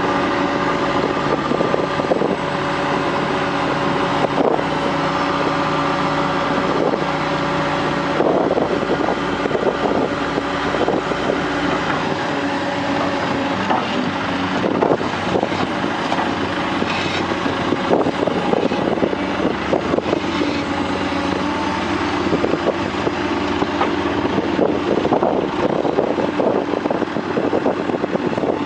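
Heavy construction machinery engine running steadily, with frequent knocks and clanks.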